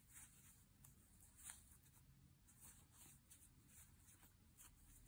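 Near silence, with a few faint, soft scratches and rustles of yarn being worked with a crochet hook.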